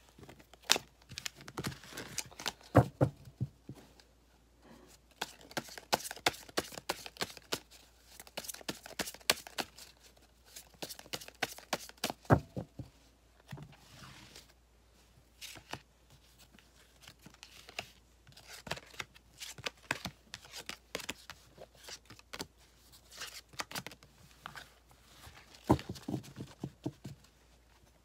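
Tarot cards handled by hand: a deck shuffled, riffled and dealt onto a cloth-covered table, giving irregular clusters of sharp card snaps and slaps with soft sliding between them. There are short lulls about four seconds in and around the middle.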